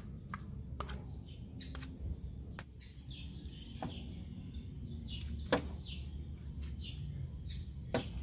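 Scattered sharp taps and clinks of a metal scoop and spoon against the stainless steel containers of a taho cart and plastic cups, the loudest about five and a half seconds in, with birds chirping.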